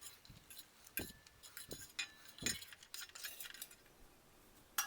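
Spoon clinking and scraping against a cooking pan as fried ingredients are scooped out, with a few soft knocks and a sharp click near the end.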